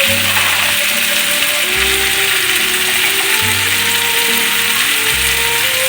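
Chicken sizzling as it fries in oil in the pan, a steady hiss, under background music with low notes that change in steps every second or so.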